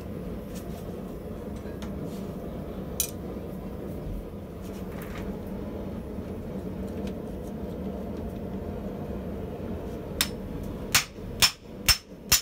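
A steady low hum, then near the end about five sharp hammer strikes on the striking plate of a rotary hot shear, shearing a hot 8mm steel bar with fairly light blows.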